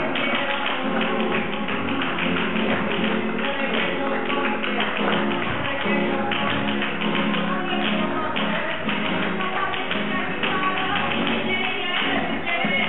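Flamenco music with guitar, over a steady run of sharp taps from the dancers' shoes striking the stage in footwork.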